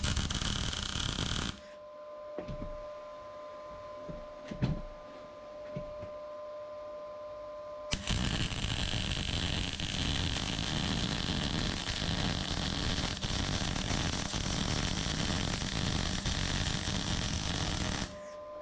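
Arc welding on steel. A short weld of about a second and a half comes first, then a steady crackling weld run of about ten seconds that stops suddenly. A steady hum fills the gap between them.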